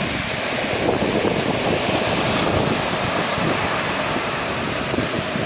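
Rough sea surf breaking continuously in a steady, dense wash of noise, with wind on the microphone.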